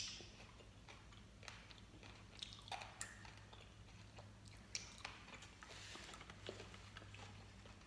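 Faint mouth sounds of someone chewing soft gummy candy, with scattered small wet clicks and smacks.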